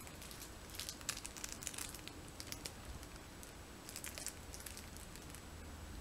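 Faint, scattered crinkles and crackles of a foil (Mylar) balloon moving on its string, in short clusters in the first two seconds and again around four seconds in.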